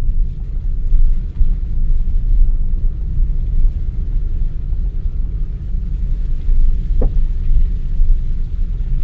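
A car driving along a road: a steady low rumble of engine and tyres, with a brief squeak about seven seconds in.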